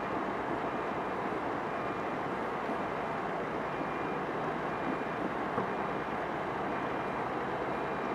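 Heavy diesel equipment at a snow dump running steadily, with a faint backup beeper sounding about once a second.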